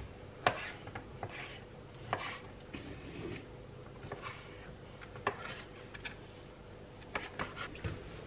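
Kitchen knife knocking on a cutting board in scattered, irregular taps while raw chicken is cut into bite-sized pieces, with a quicker run of taps near the end, over a faint steady hum.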